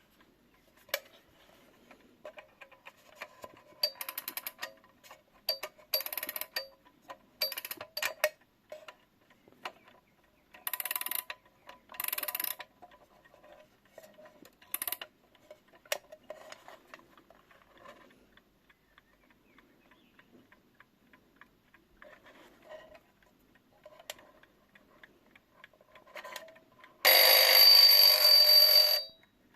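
Mid-century French Bayard mechanical wind-up alarm clock: scattered clicks and several brief bursts of rapid strikes in the first half, faint ticking, then the alarm bell rings loudly for about two seconds near the end.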